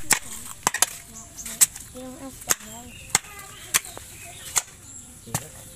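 Hoe blade chopping into clumpy earth in short, sharp strikes, about nine of them, roughly one every three-quarters of a second. Voices talk faintly between the strokes.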